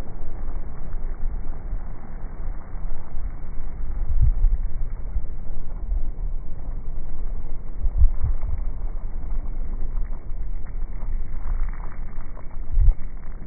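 Wind-driven waves crashing against a wall: a steady low rumble of surf with deep thuds about every four seconds, and wind buffeting the microphone.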